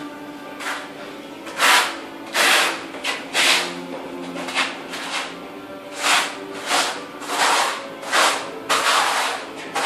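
Steel notched trowel scraping tile adhesive across a concrete floor in quick repeated strokes, about one every half to one second, combing the adhesive into ridges before the tile is laid.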